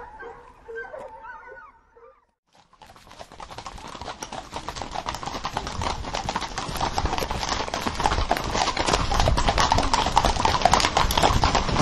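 Hoofbeats of several horses on the move, a dense run of hoof strikes that starts about three seconds in after a brief lull and grows steadily louder as they come nearer. Before it, the last cries of foxhounds fade out in the first two seconds.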